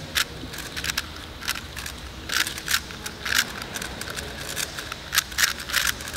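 Rubik's cube being turned by hand: irregular quick plastic clicks and clacks of the layers turning, some in short runs.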